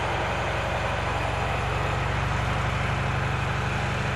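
Diesel engine of a DB class 215 diesel-hydraulic locomotive running with a steady low drone as it pulls a coal train away.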